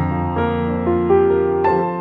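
Background music: a slow, soft piano piece, with a few notes struck and left to ring and fade.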